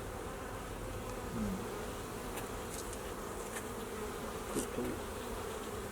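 Honeybee colony buzzing steadily around an opened hive with a brood frame lifted out, a dense hum of many bees. A few faint clicks sound over it.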